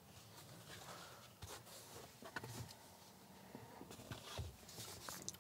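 Faint handling noise from plastic dash trim: a few soft, scattered clicks and rustles over quiet room tone.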